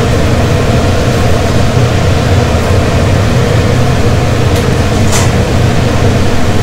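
Pot of chicken soup at a rolling boil, a steady low rumble, with two light clicks about four and five seconds in.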